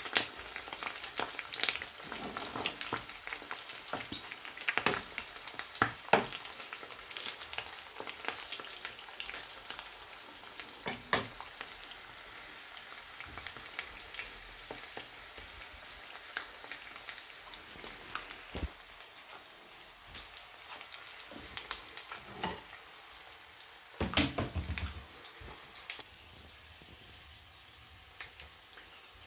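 Fried eggs sizzling in hot oil in a non-stick pan, a steady crackle with many sharp pops, with a metal spoon nudging the eggs. The sizzle grows fainter over the second half, and a short cluster of louder knocks comes near the end.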